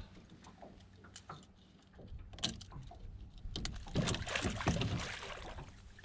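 Water splashing and knocking against the side of a small boat while a large pike is unhooked in the landing net, with scattered clicks in the first seconds and a louder burst of splashing about four seconds in.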